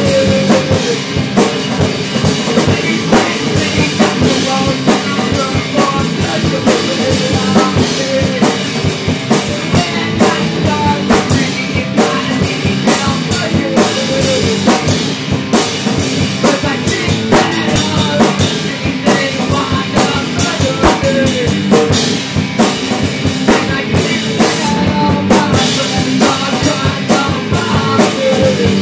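Rock music: a drum kit keeps a busy, steady beat with bass drum, under a guitar playing wavering melodic lines.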